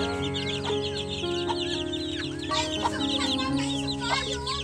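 A brood of chicks peeping nonstop, many high chirps overlapping, with a few lower clucking calls about halfway through. Soft background music plays underneath.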